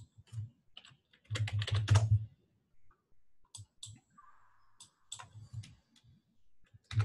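Computer keyboard being typed on: scattered key clicks, with a quick run of keystrokes about a second and a half in.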